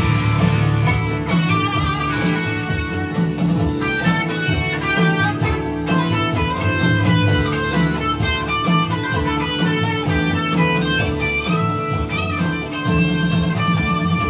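A small band playing live, an instrumental passage without singing: electric guitars over bass guitar and a stage piano keyboard.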